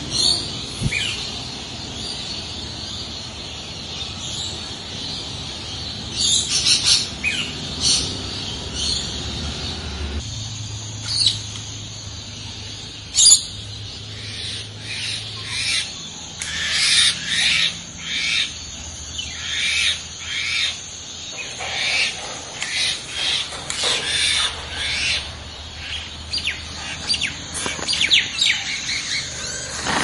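Parrots calling: many short, high-pitched chirps and calls, scattered at first and coming in quick succession over the second half.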